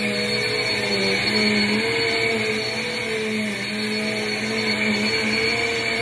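Upright bagless vacuum cleaner running while it is pushed forward and backward over carpet: a steady motor hum whose pitch wavers slightly as it moves.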